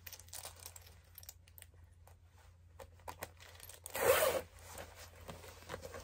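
Thick metal zipper on a work jacket: small clicks and rustles as the ends are fitted together at the hem, then one quick zip up about four seconds in.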